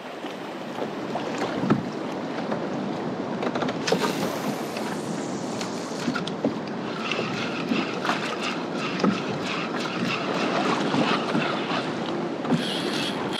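Choppy sea water sloshing and splashing against a kayak hull as it moves across the bay, with wind buffeting the microphone. A faint steady high hum joins about halfway through.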